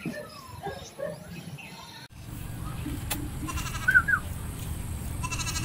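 A goat held down on the ground for qurban slaughter bleats briefly a couple of times, over a steady low rumble.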